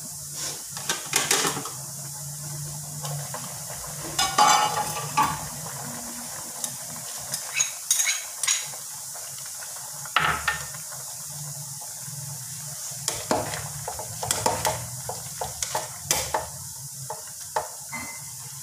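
A plastic ladle stirring chicken and winter melon soup in an aluminium pot: irregular knocks and scrapes against the pot, over a steady low hum.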